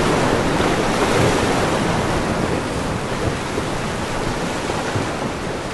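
Ocean surf washing steadily, easing slowly in level.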